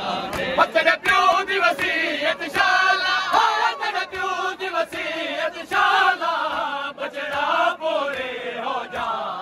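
A crowd of men chanting a mourning chant (noha) together, with sharp slaps of chest-beating (matam) about once a second keeping the beat.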